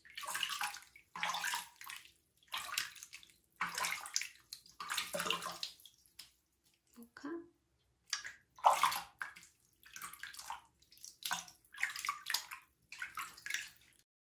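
Water splashed by hand from a plastic tub over a dog's coat during a bath: about ten separate splashes, a second or so apart.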